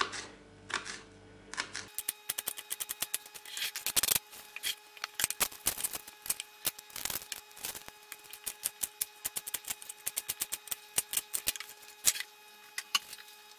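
Kitchen knife chopping onion on a plastic cutting board: a quick, irregular run of sharp taps from the blade hitting the board.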